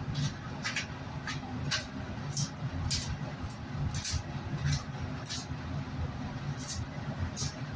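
Boning knife slicing through meat and fat on a hanging beef hindquarter: quick, sharp cutting strokes, about one or two a second, over a steady low hum.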